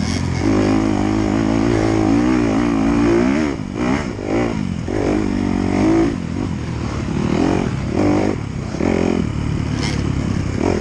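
Dirt bike engine revving up and down over and over as the throttle opens and closes, its pitch rising and dropping roughly every second, with one longer held pull early on.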